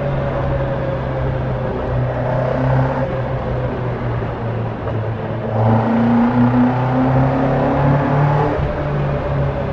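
Caterham Super Seven 1600's four-cylinder engine running steadily. About halfway through it grows louder for a few seconds, then settles back.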